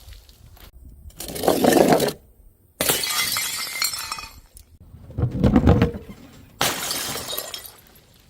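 Glass bottles smashing, two loud shatters with sharp onsets and a trail of tinkling shards. Each is preceded about a second earlier by a duller, lower crash.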